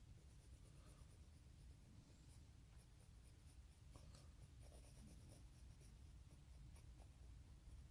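Near silence: a low room hum with faint, scattered light scratching and small ticks.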